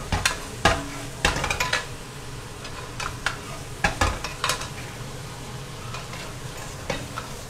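A metal spatula scrapes and taps against a wok as French beans and minced garlic are stir-fried, over a steady sizzle. The strokes come quickly for the first couple of seconds, then only now and then.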